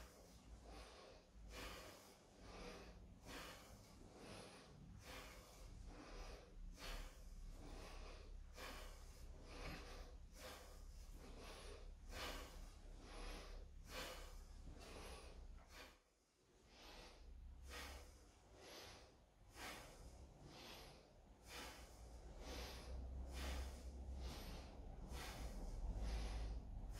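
A wooden practice sword (bokken) swung in repeated downward cuts, making a short breathy whoosh with each stroke in a quick, steady rhythm. There is a brief pause about midway.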